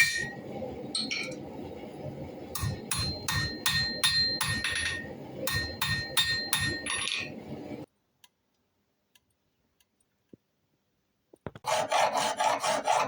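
Hammer blows on hot spring steel over an anvil, in two quick runs of strikes, each with a ringing tone, over a steady low background noise. The sound then cuts off to near silence, and near the end rapid rasping strokes begin, like a file working the steel.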